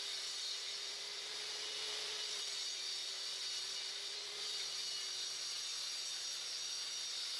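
Table saw running steadily: an even motor hum under a high, airy hiss.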